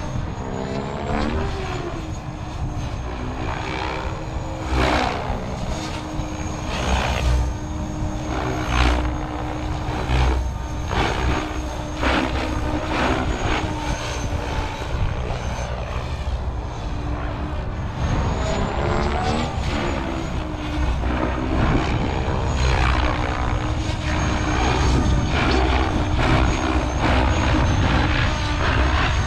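SAB RAW 580 electric RC helicopter in flight: a steady rotor and motor drone whose pitch bends up and down as the helicopter moves and is loaded. Repeated surges of louder rotor noise come through during manoeuvres.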